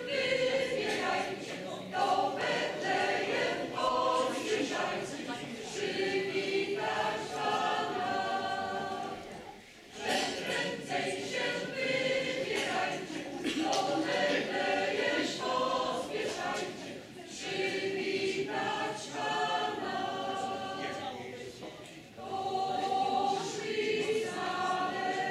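Mixed choir of women's and men's voices singing unaccompanied, in long phrases with two short breaks about ten and twenty-two seconds in.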